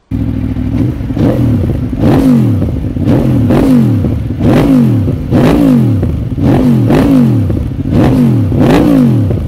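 Aprilia Tuono V4 sport bike engine, standing in neutral, revved in a series of quick throttle blips about once a second, each climbing and dropping back, through its exhaust with the baffle fitted.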